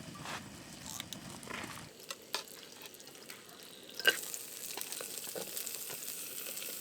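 Ingredients sizzling as they are stir-fried in a pan, with the clicks and scrapes of a utensil on the pan. About four seconds in there is a sharp clack, and after it the sizzling grows louder.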